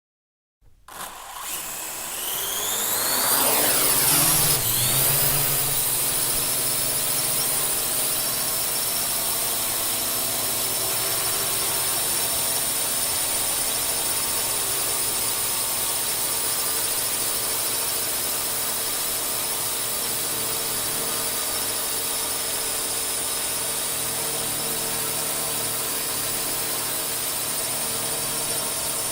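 A drone's electric propeller motors spinning up, their whine rising in pitch over the first few seconds, then settling into a steady high-pitched buzz as it hovers.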